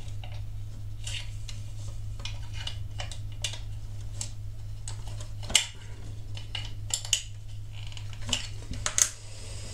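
Hard plastic parts clicking and knocking as a plastic roller drum is handled and fitted onto a model compactor's frame: scattered light clicks, with two sharper knocks a little past halfway and near the end. A low steady hum runs underneath.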